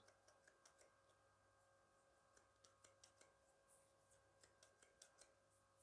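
Near silence with faint, quick snips of hair-cutting scissors, scattered clicks coming several times a second.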